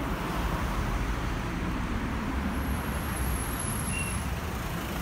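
Street traffic: cars passing on the road, a steady noise with a heavy low rumble. A faint high whine comes in about halfway through.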